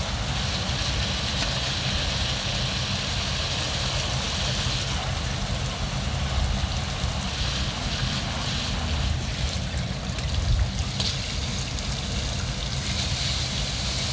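Garden hose spray watering potted plants: a steady hissing spray, over a constant low rumble.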